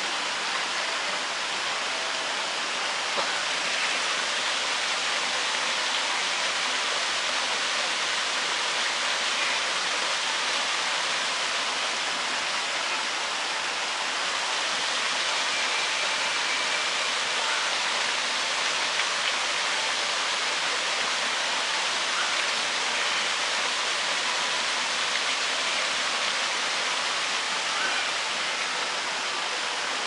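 Steady, even rushing noise like falling water, unchanging in level.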